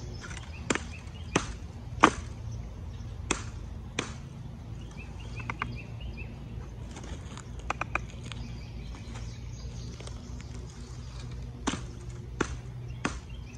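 Skachet hatchet head on a green-wood handle chopping into branches: five sharp chops in the first four seconds, the third the loudest, then a pause with a few light clicks, then three more chops near the end.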